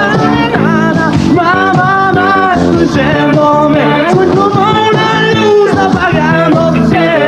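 Rock band playing live, with electric guitar, bass, drums and keyboards and male voices singing over it.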